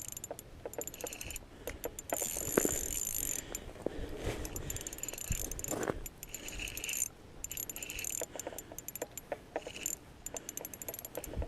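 Fishing tackle being handled and a rod and reel being rigged: irregular small clicks and rattles of mechanical parts.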